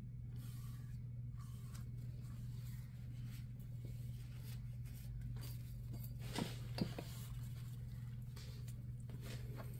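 A flat paintbrush swishing in short scratchy strokes over a painted plaque in the first few seconds, then scattered light handling noises and two sharp clicks about six and a half seconds in, over a steady low hum.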